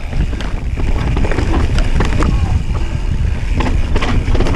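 Mountain bike riding fast down a rough dirt trail: tyres rumbling over roots and stones, with the chain and frame clattering in many short knocks. Wind buffets the microphone throughout.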